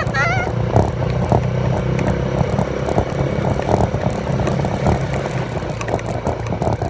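Off-road vehicle's engine running steadily while under way, with frequent knocks and rattles throughout.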